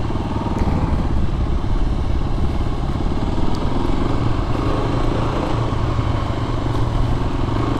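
Kawasaki KLR250's single-cylinder four-stroke engine running steadily at low speed, heard from on board the bike.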